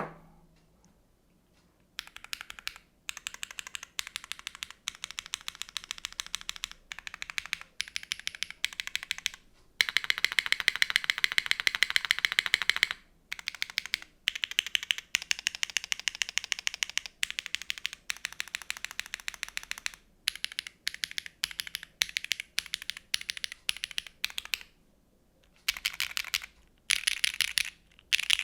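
Fast typing on a gasket-mounted mechanical keyboard with a carbon-fibre plate, Keygeek B1 switches lubed with Tribosys 3204 and GMK ABS keycaps. Runs of rapid keystrokes are broken by brief pauses, with a louder, denser run near the middle.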